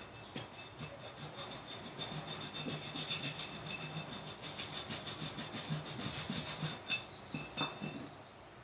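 Rusty metal being scraped and rubbed by hand in quick, irregular strokes, as rust is worked off it; the strokes stop about eight seconds in.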